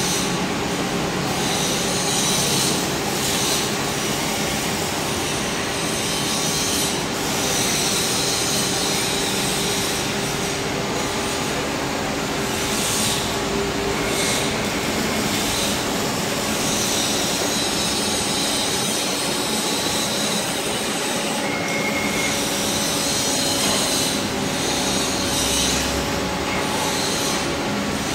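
Gantry CNC drilling machine running: a steady mechanical whir from its spindles and drives with a harsh high hiss, growing briefly harsher now and then.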